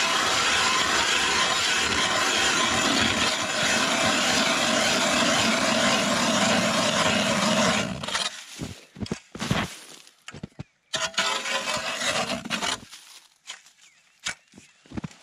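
Ice auger boring through lake ice: a loud, steady grinding that stops abruptly about eight seconds in. Scattered short scrapes and knocks follow as the auger is worked in the fresh hole and lifted out.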